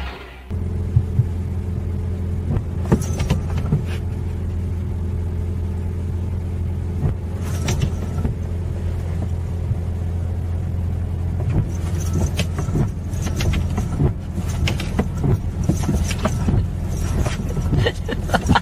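A steady low hum, with scattered light clicks and knocks over it that come more often in the second half.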